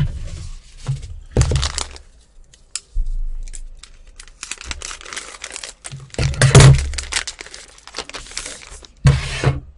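Plastic retail packaging being cut with scissors and crinkled as it is opened, in irregular bursts of rustling and crackling. The loudest burst comes about two-thirds of the way through.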